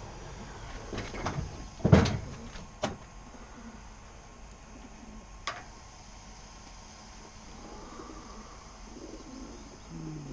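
Racing pigeons cooing in their stacked transport crates, with a few sharp knocks in the first seconds, the loudest about two seconds in, and one more a few seconds later.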